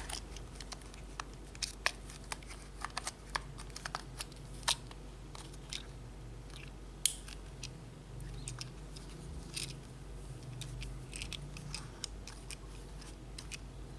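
Irregular small clicks and taps from handling a Baofeng UV-82 handheld radio and its plastic parts, the sharpest about a third and halfway through, over a faint low hum.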